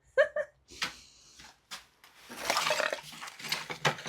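Junk being rummaged through and moved by hand: a single sharp knock just under a second in, then, from about two seconds in, busy rustling and clattering of items being handled.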